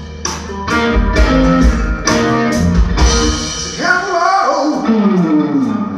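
Live blues band playing: electric guitar, bass guitar and drum kit, with a run of falling notes about four seconds in.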